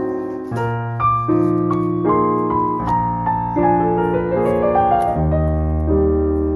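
Background piano music: a steady run of chords and melody notes over a changing bass line.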